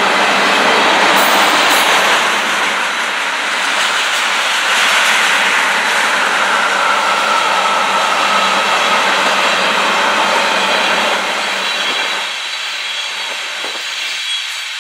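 Freight train of railroad tank cars rolling past close by: a steady wheel-on-rail rumble and clatter, easing somewhat near the end.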